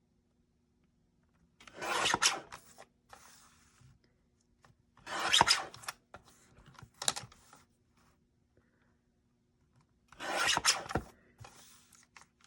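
Rasping strokes of a tool worked against paper: four main short strokes, each under a second and a few seconds apart, with fainter scrapes between them.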